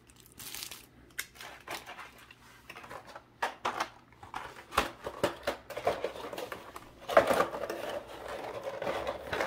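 Clear plastic accessory bags crinkling and small plastic parts clicking as they are handled, in short irregular bursts that get busier near the end.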